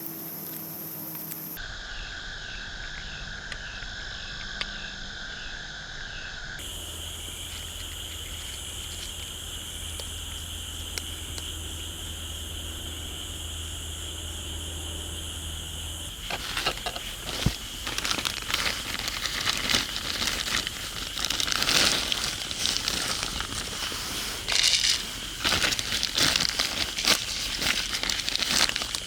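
A cat crunching dry food with irregular crackling bites, starting about halfway through. Before that there is only a steady background hum with a few thin high tones.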